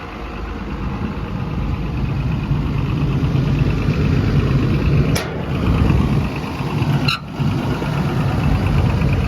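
Komatsu PC210LC-11 excavator's six-cylinder diesel engine idling steadily, running smoothly. Two brief clicks, about five and seven seconds in.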